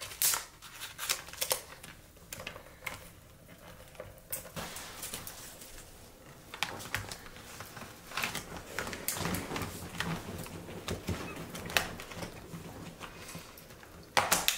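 Handling of a Polaroid Land Camera Automatic 100 and its plastic FP-100C packfilm cartridge: scattered clicks, taps and scrapes as the pack is lifted out and pressed back into the film compartment to seat it. There is a louder cluster of clicks near the end.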